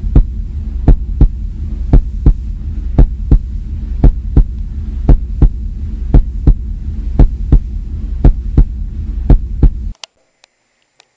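Heartbeat sound effect: slow double thumps, about one pair a second, over a loud, low steady drone, cutting off suddenly near the end.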